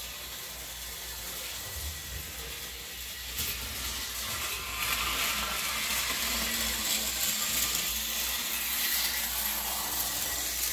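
Märklin model train running on its track: a steady whirring, hiss-like rolling noise that grows louder about four to five seconds in and then holds.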